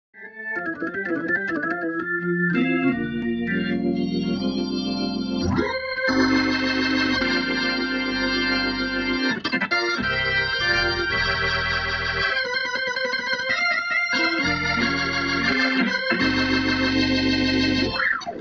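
Organ music playing held, changing chords, starting suddenly and filling out with a deep bass line after a couple of seconds.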